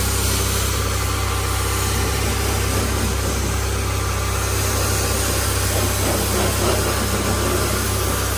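Pressure washer running steadily, a constant low hum under an even spray noise as the water jet is played over a pickup truck's body.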